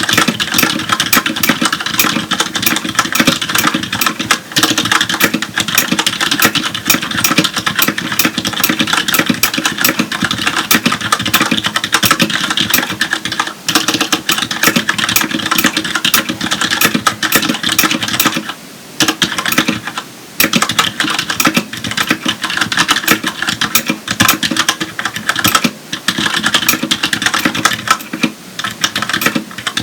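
Fast, continuous typing on a Filco Majestouch Tenkeyless mechanical keyboard with Cherry MX Red linear switches: a dense run of keystrokes with a few brief pauses in the second half.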